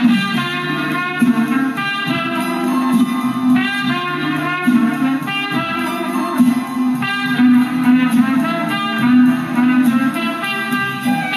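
Music playing from a vinyl LP on a Fisher C-20 turntable at 33⅓ rpm: a changing melody over steady low sustained notes.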